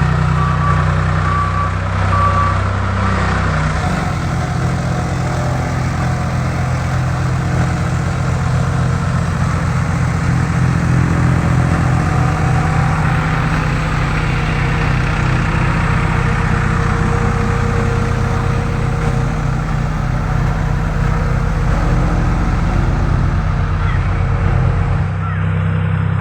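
Road roller's engine running steadily under load, with a reversing alarm beeping for the first two seconds or so. The engine note shifts near the end.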